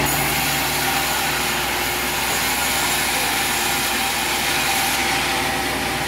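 Large vertical band saw running and cutting timber, a steady mechanical noise with a high hiss that drops off about five seconds in.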